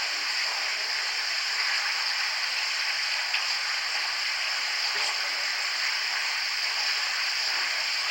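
Steady, even hiss with no other sound except one faint tick about three seconds in, most likely the recording's own background hiss in a quiet space.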